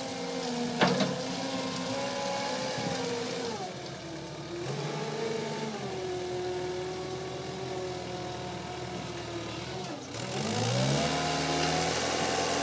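Cat skid steer loader's diesel engine working under load, its revs dropping about four seconds in and rising again near the end. A single sharp knock about a second in.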